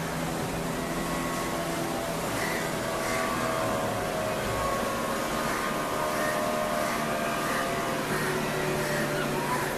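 Sea surf washing and breaking steadily in the shallows, with a steady motor drone running underneath it.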